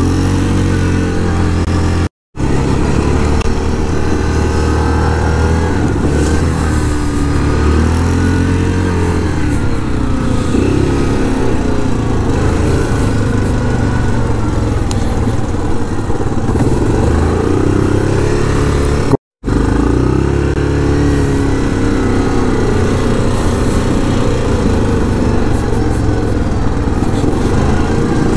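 Yamaha Grizzly 700 ATV's single-cylinder four-stroke engine running under way on a gravel track, its pitch rising and falling with the throttle. The audio cuts out completely twice for a moment.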